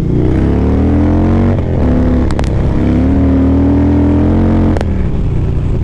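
Harley-Davidson Dyna Street Bob's Twin Cam V-twin engine revving up as the bike accelerates across the ice, its pitch rising twice with a dip between. Sharp clicks about two and a half seconds in and near the end.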